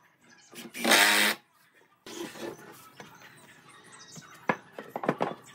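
Workshop sounds: one loud burst about a second in, then a run of light knocks and clicks, sharpest near the end.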